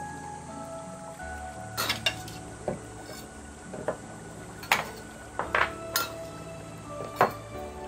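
Stainless steel cake rings being set down one after another on a baking tray: a series of light metallic clinks and knocks, over soft background music.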